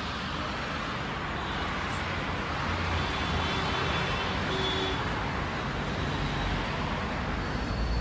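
Road traffic: cars driving past on a highway, with tyre and engine noise swelling as one car passes about three to five seconds in, and a low rumble building near the end.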